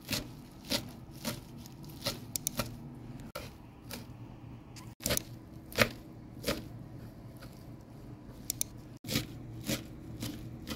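Kitchen knife chopping fresh parsley on a wooden cutting board: sharp knocks of the blade through the leaves onto the board, irregular, roughly one or two a second, with a few quick double strikes.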